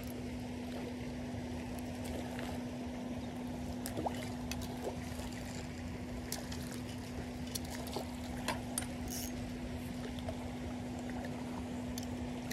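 A hooked trout splashing at the water's surface as it is brought to a landing net: scattered short splashes over steady water noise, with a constant low hum throughout.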